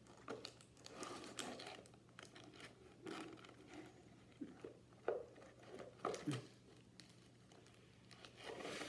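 Faint, irregular crinkling and rustling of packaging being handled, with a few light clicks and taps, as items are taken out of a trading-card box.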